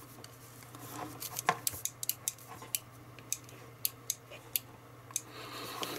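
Irregular sharp clicks and taps from handling an electric vacuum desoldering pump, over a faint steady low hum.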